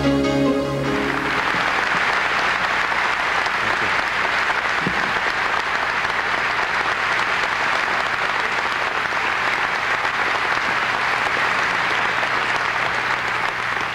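The last notes of instrumental music stop about a second in. An audience in a hall then applauds steadily, and the clapping starts to die away near the end.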